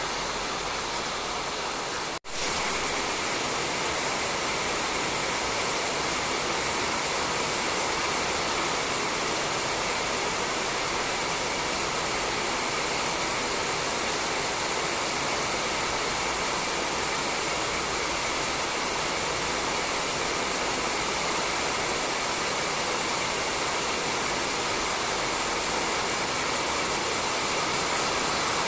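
Steady rain falling on a roof, an even hiss with no breaks except a dropout of a split second about two seconds in.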